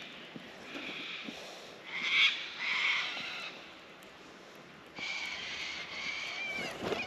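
Harsh animal calls in repeated short bursts, loudest about two and three seconds in, with a falling call near the end.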